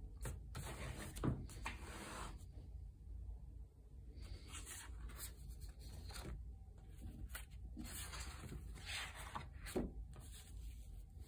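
Rubbing and scraping handling noise from a handheld phone camera, with a couple of light knocks, one about a second in and one near the end.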